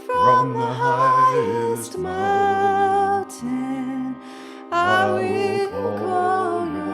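Slow devotional song: sustained instrumental chords that change every couple of seconds, with a woman's voice singing a wordless melody over them.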